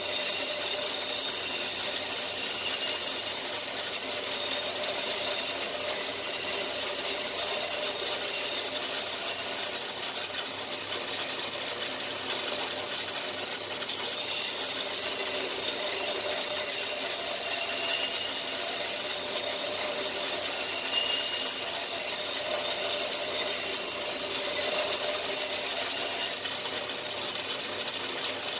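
A power tool running steadily with a continuous grinding hiss and a faint steady whine.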